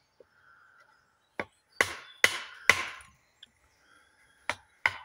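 Axe blows driving a steel wedge into a log to split it: a light tap, then three hard, ringing strikes about half a second apart, and two lighter strikes near the end.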